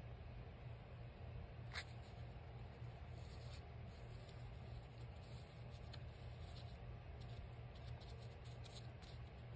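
Faint rustling and rubbing of paper as fingers press and smooth a pink patterned strip onto a book page, with a light tick about two seconds in, over a low steady hum.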